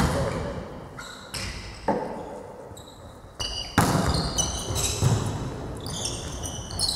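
A volleyball bounced on a sports-hall floor a few times, then struck hard on a serve about four seconds in. After the serve, sneakers squeak repeatedly on the court as the players move.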